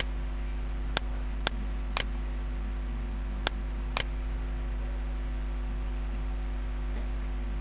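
Computer mouse clicking six times in the first four seconds, irregularly spaced, over a steady low electrical hum.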